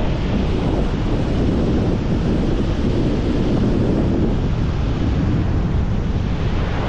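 Wind blowing across the microphone: a loud, steady low rumble of noise.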